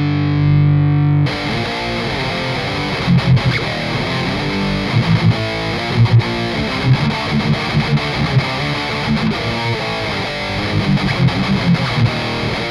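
Heavily distorted electric guitar played through a metal amp sim plugin, widened into a big stereo sound by a very short stereo delay from Voxengo Stereo Touch. A held chord rings for about the first second, then cuts off into tight, rhythmic riffing with accented chords.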